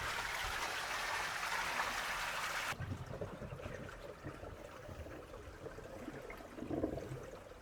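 Dirty water draining out of the opened drain port at the bottom of a Jandy cartridge pool filter, a steady splashing hiss that cuts off suddenly about three seconds in.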